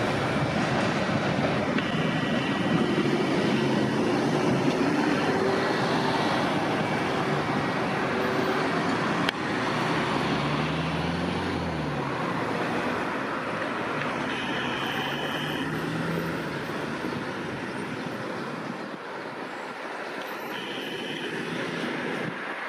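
Steady city street traffic noise from passing road vehicles. About ten seconds in, a vehicle engine rises and falls in pitch, and short high tones come and go a few times.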